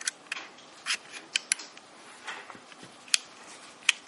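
Irregular sharp metallic clicks and taps as the cylinder pin is slid back through the frame and cylinder of an 1895 Nagant revolver. The sharpest clicks come about three seconds in and near the end.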